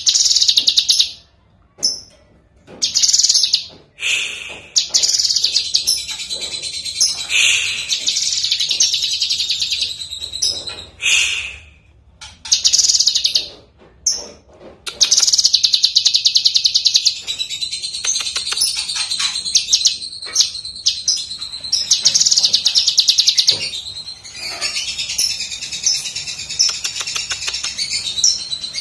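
Caged cucak kinoi leafbird singing loud, rapid, high twittering phrases. The song comes in short bursts with pauses over the first half, then runs almost unbroken from about halfway.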